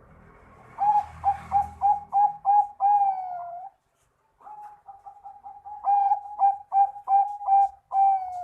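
Zebra dove (perkutut) of the Bangkok song strain singing: two phrases of quick repeated coos, each ending in a longer note that dips slightly.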